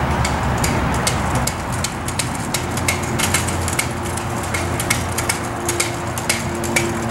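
Kick scooter's small wheels rolling over a concrete path, rattling and clicking more often as it comes closer, over a low wind rumble. A faint steady hum sets in a few seconds in.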